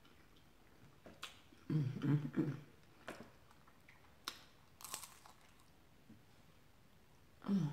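Crunching and chewing of a fried chicken samosa bitten and eaten close to the microphone, with a few sharp crunches scattered through. A short low hum comes about two seconds in and another near the end.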